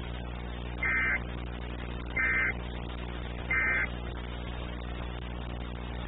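Emergency Alert System end-of-message signal: three short bursts of digital data tones, evenly spaced about a second and a half apart, over a steady low hum.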